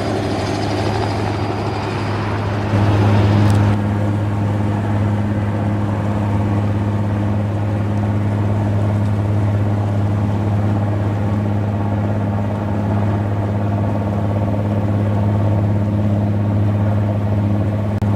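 Robinson R66 turbine helicopter running, a loud, steady low hum from its rotors and turbine. The high hiss above it drops away about four seconds in, after a brief louder moment.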